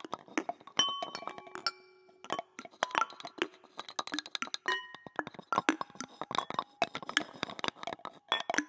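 Handheld found-object instruments (lydes) struck and clinked in a dense, irregular scatter, many strikes leaving a short ringing note at a different pitch. Several independently recorded takes overlap, so the strikes pile up without a shared beat.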